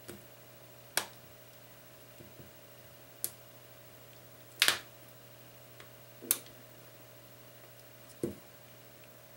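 Plastic clips of a Nexus 4's back cover snapping loose as it is prised off by hand: five sharp clicks spaced a second or two apart, the loudest about halfway through.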